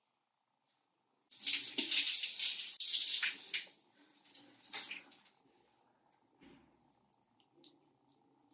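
Water from a bathroom tap running into the sink and splashing for about two seconds, starting suddenly, then a couple of short splashes as water is scooped onto the face.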